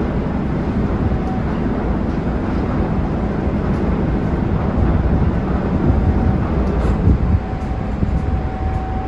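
Steady low rumble of the car ferry's engines as it manoeuvres in to dock, with a faint thin high tone briefly about a second in and again from about six seconds.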